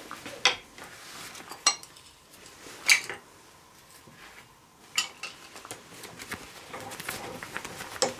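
Metal hand tools and brake cylinder parts clinking and knocking as they are handled and set down on a workbench. About five sharp clinks come a second or more apart, with lighter ticks between them.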